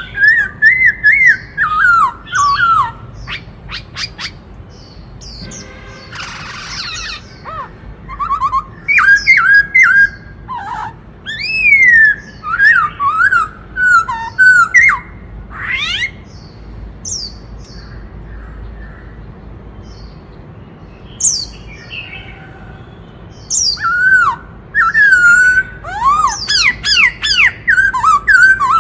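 Black-throated laughingthrush singing: loud, varied whistled phrases that glide up and down in pitch, in bursts separated by short gaps. A quieter stretch of several seconds falls in the middle, and rapid phrases return near the end.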